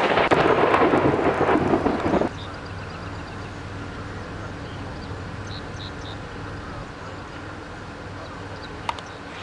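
Loud rumbling of thunder from a supercell thunderstorm for about two seconds, which cuts off suddenly. A much quieter steady low background hum follows.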